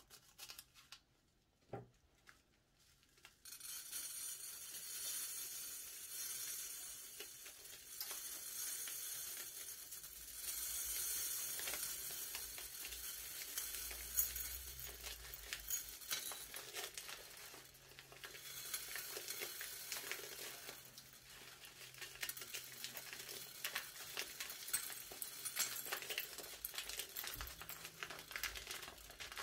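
Slime being stirred and worked by hand, making a sticky, crackling, fizzing sound full of small pops. It starts a few seconds in, after a few faint taps.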